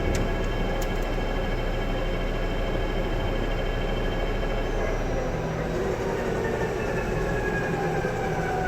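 Willis big-bore CNC lathe running with a steady hum and several whining tones that slowly fall in pitch from about five seconds in. A couple of sharp clicks come about a second in.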